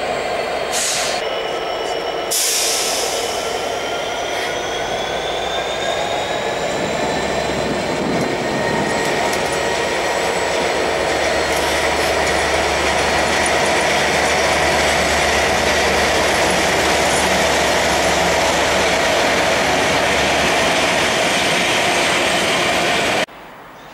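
Class 69 diesel-electric locomotive under power as it pulls through the station, its EMD 710 engine note rising over the first several seconds and then holding steady. Two short hissing bursts come about one and two and a half seconds in. The sound cuts off abruptly just before the end.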